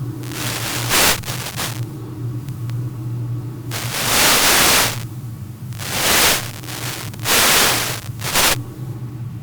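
Wind noise on the onboard camera microphone of an RC glider in flight. It comes in five gusts of rushing noise, the longest about a second, near the start, in the middle and toward the end, over a steady low hum.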